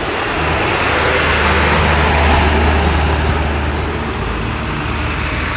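Heavy cargo truck driving past close by: a deep engine note with tyre and road noise that builds to its loudest about two seconds in, then fades as the truck pulls away.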